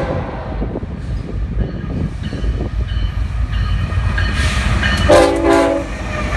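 Union Pacific diesel locomotive's air horn played in a series of blasts, a horn show: a chord trailing off about a second in, softer notes, then a loud blast from about four to six seconds in. Under it the steady low rumble of the passing diesel locomotives.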